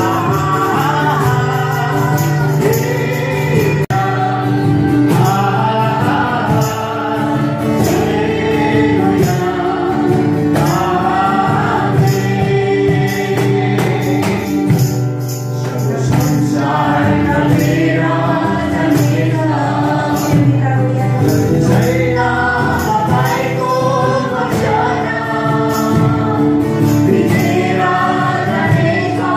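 A group singing a worship song together, led by voices on microphones with acoustic guitar, and a tambourine shaken along in time.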